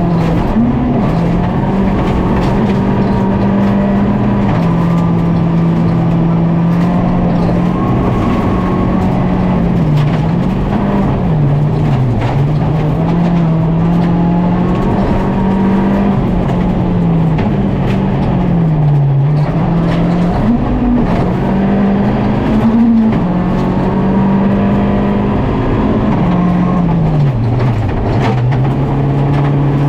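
Volkswagen Polo GTI R5 rally car's 1.6-litre turbocharged four-cylinder engine driven hard on a stage. It runs loud and without a break, the revs climbing and falling again and again as it shifts gears and brakes for corners.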